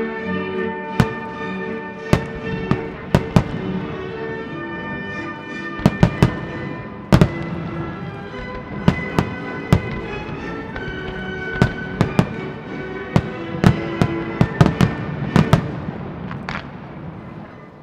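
Fireworks display: aerial shells burst in many sharp bangs, some single and some in quick runs of three or four, over music with sustained notes.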